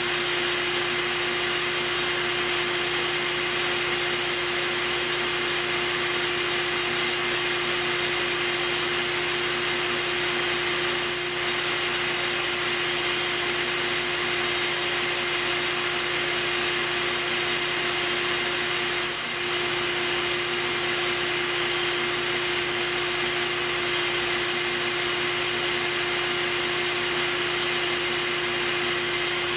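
Bee vacuum running steadily with a constant hum, a portable generator running underneath it. The sound dips briefly twice.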